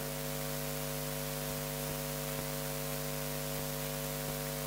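Steady electrical mains hum from a microphone and sound system: several constant tones under an even layer of hiss, with no change in level.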